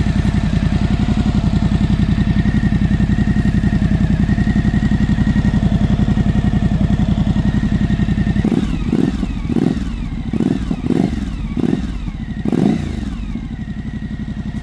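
Suzuki V-Strom 1050DE's V-twin idling with a deep, even pulse through a Fuel Diablo slip-on exhaust with its baffle removed. About eight seconds in, the throttle is blipped several times in quick succession, each rev rising and falling back.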